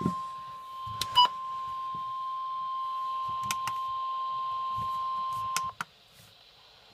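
NOAA Weather Radio warning alarm tone: one steady beep-like tone that cuts off suddenly near the end, with a few sharp clicks about a second in.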